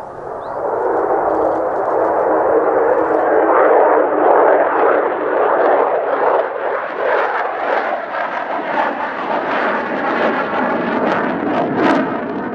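Jet noise from a Mitsubishi F-2B fighter's single turbofan as the jet passes low over the runway. It builds quickly in the first second, stays loud, and turns crackly near the end.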